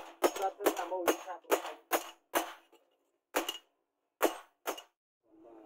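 Hammer striking a cold leaf-spring steel knife blade on a round steel anvil: about ten sharp metallic blows, quick and even at first, then spaced out and stopping, with a ringing tone between the early strikes.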